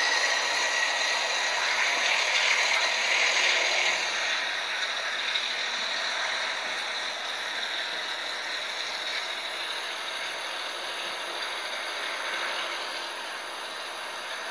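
A train running along the track, a steady rattle with a thin high squeal at the start, gradually fading as it moves away.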